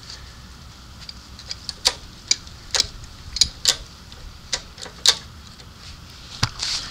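About a dozen sharp mechanical clicks at an uneven pace, some in quick pairs, from the pulling rig as load is put on the crane scale.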